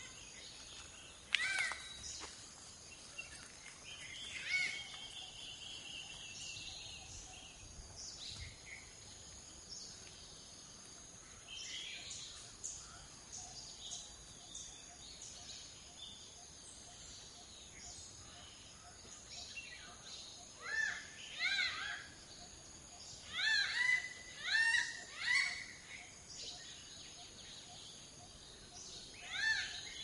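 Malabar grey hornbill calling: groups of quick, rising-and-falling cackling notes, in bursts from about two-thirds of the way through and again near the end, over a steady high insect drone. A sharp click comes about a second and a half in.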